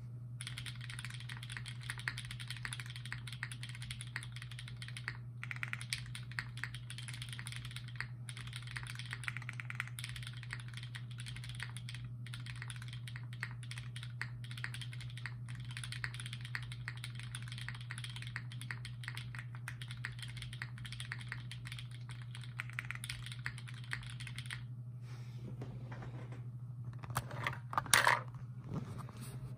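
Sangeo 60 custom mechanical keyboard with a polycarbonate half plate, Durock POM linear switches lubed with 205g0 and GMK keycaps, being typed on in fast, continuous runs of clacks with a few short pauses. The typing stops about five seconds before the end, followed by a few louder knocks.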